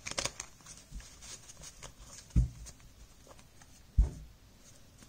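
Tarot deck handled between shuffles on a soft cloth: light clicks of cards settling, then two soft thumps about a second and a half apart as the deck is knocked down to square it.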